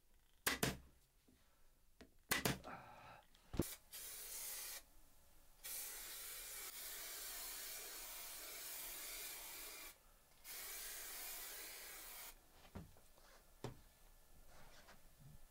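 An upholstery staple gun fires about five times in the first four seconds, sharp clicks. Then a steady hiss runs in long stretches from about four to twelve seconds in, starting and stopping abruptly.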